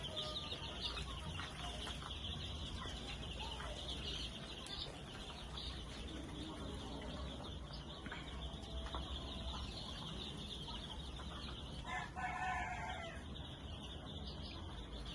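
Three-day-old brooder chicks peeping constantly, a dense chorus of many overlapping high peeps over a steady low hum. About twelve seconds in, a louder, drawn-out call rises above them for about a second.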